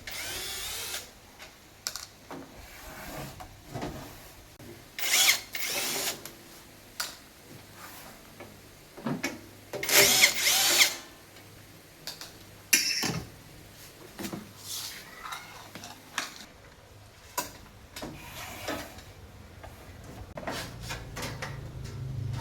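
A power drill runs in three short bursts of about a second each, with clicks and knocks of handling in between. A low hum comes up near the end.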